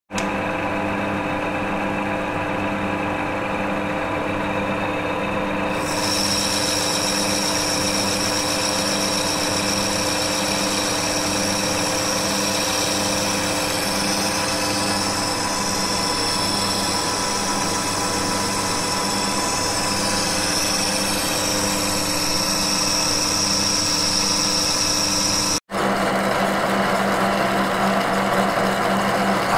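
Metal lathe running and turning a small brass pump valve: a steady machine hum with a regular low pulse, and a high whine that joins about six seconds in. Near the end it cuts sharply to a milling machine running, with an end mill cutting the brass part, a rougher and noisier sound.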